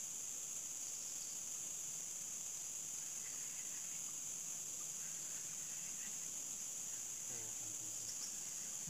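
Insects droning steadily at a high pitch.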